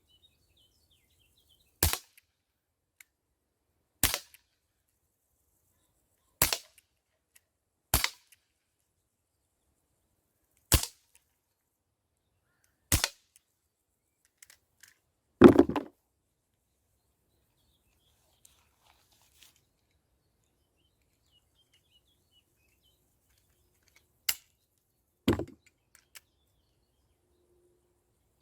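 ASG Dan Wesson 715 CO2 BB revolver firing single shots, each a sharp crack: six shots a couple of seconds apart, then a louder, deeper knock, then two more cracks after a long pause.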